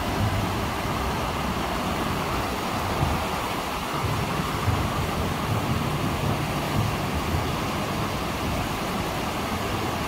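Water of a man-made waterfall cascading down rock ledges: a steady rushing hiss, with a low, uneven rumble underneath.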